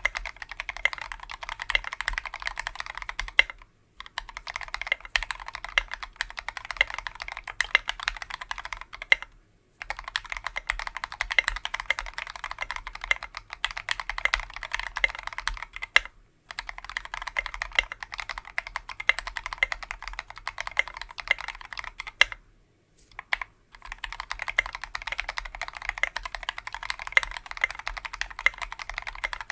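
Steady fast typing on a KBDfans Tofu 60% mechanical keyboard with lubed Tealios V2 linear switches on a brass plate and Maxkey SA keycaps. It comes in runs of keystrokes broken by four short pauses.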